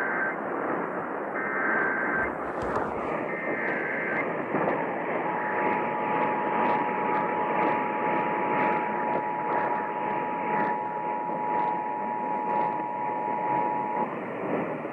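Emergency Alert System tones on a radio broadcast: three short screeching bursts of SAME header data, the first already under way, then the two-tone attention signal held steady for about nine seconds. The tones begin a Child Abduction Emergency (Amber Alert) relay. Everything is heard through radio hiss and faint crackle.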